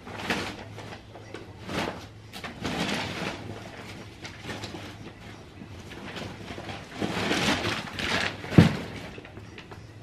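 Plastic and paper bags rustling and crinkling in irregular bursts as they are rummaged through and shifted about, with one sharp thump of something set down or knocked a little before the end.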